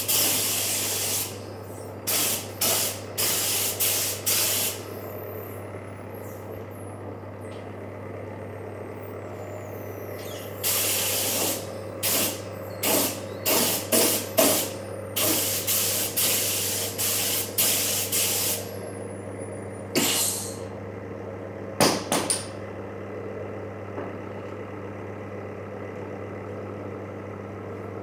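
Gravity-feed air spray gun spraying paint onto a helmet, hissing in a longer burst at the start and then in runs of short bursts at about two a second, with a few single bursts near the end. A steady low machine hum runs underneath.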